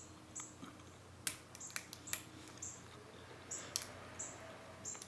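Lock pick and tension tool clicking and scraping in the keyway of a Medeco Duracam padlock cylinder: a scatter of small sharp metal clicks and short high scratches.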